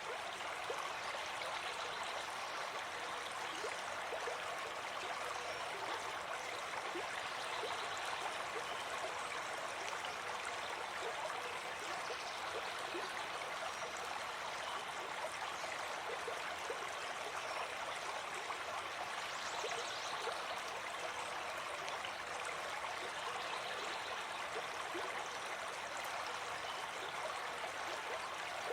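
Running water flowing steadily, with small splashes and trickles over it.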